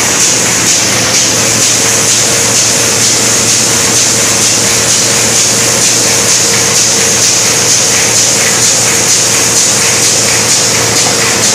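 Envelope-making machine running: a steady, fast mechanical rhythm of its moving parts over a loud continuous hiss and a constant hum.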